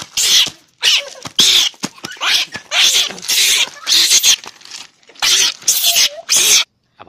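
Baby macaque screaming in an angry tantrum: a string of about nine short, harsh shrieks that stop abruptly about half a second before the end.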